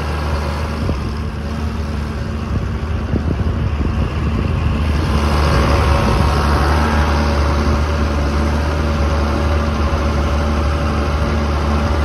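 1980s John Deere tractor's diesel engine running, heard from inside the cab: a steady low hum that grows louder about five seconds in.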